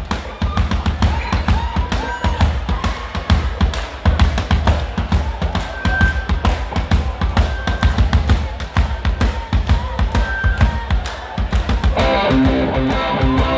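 Live rock drum kit played hard, with rapid hits on bass drum, snare and cymbals. Electric guitar chords come in about twelve seconds in.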